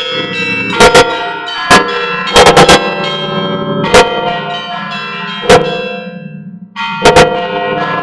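Orthodox church bells being rung by hand: irregular clanging strikes of smaller bells, some in quick clusters, over the ringing of larger bells. Near the end the sound dies down for a moment, then resumes abruptly with fresh strikes.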